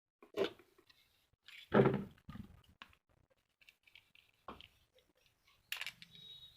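Knocks and clicks of table fan parts being handled and fitted together, the loudest a thump about two seconds in. A low steady hum sets in near the end.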